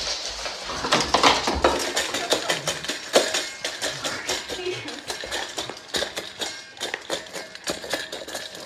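Dog eating from a stainless steel bowl: its muzzle and teeth knock the metal bowl in rapid, irregular clinks and rattles.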